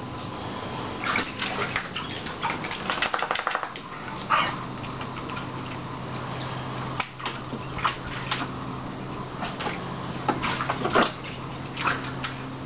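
Staffordshire bull terrier splashing in a plastic paddling pool, pawing and snapping at the water, giving irregular splashes and slaps with a quick run of rapid ticks about three seconds in. A steady low hum sits underneath.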